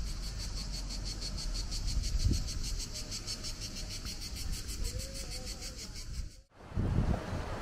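Insects chirping in a fast, even pulsing, over a low rumble with a dull thump about two seconds in; the chirping cuts off suddenly near the end.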